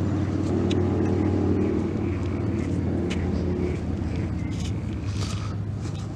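An engine running steadily, a low even hum with a few faint ticks over it.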